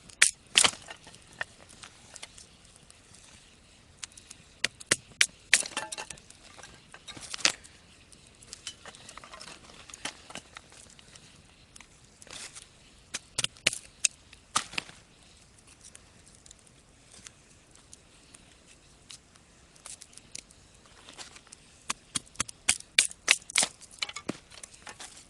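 Firewood being split by batoning, a knife blade driven into a piece of wood by blows from a baton: bursts of sharp wooden knocks, several a second, coming in four or five spells with pauses between.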